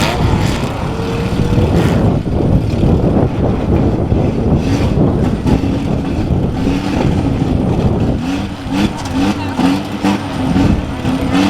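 Compact demolition-derby cars' engines running and revving together, loud and continuous, with a wavering pitch in the second half.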